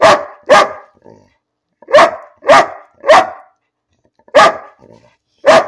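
Large dog barking loudly: seven short barks, a pair, then a run of three, then two single barks, with pauses of about a second between the groups.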